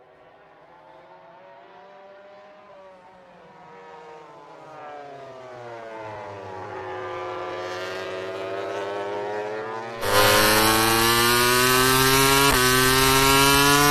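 Honda RC213V MotoGP bike's V4 engine at racing revs. It is faint at first, its note dropping and then climbing as it gets louder. About ten seconds in it turns suddenly much louder and close, holding a high steady note with a brief break for a gear change.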